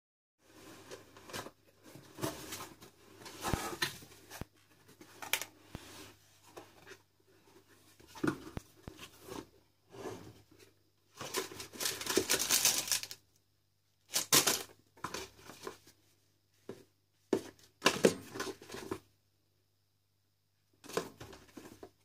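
Cardboard box and paper packing being opened by hand: irregular rustling, scraping and tearing of cardboard and paper with a few sharp taps, the longest rustle lasting about two seconds a little past halfway.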